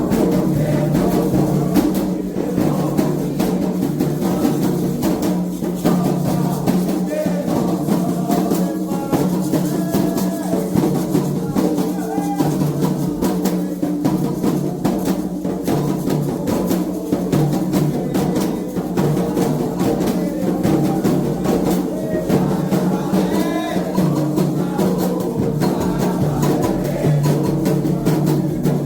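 Candomblé ritual drumming: atabaque hand drums playing a fast, continuous toque with dense, even strokes.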